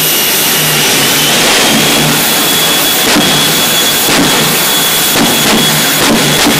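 Shockwave jet truck's three jet engines running hard at the start line: a steady loud rush of exhaust with a high whine on top, broken by several sharp pops as the afterburners flare.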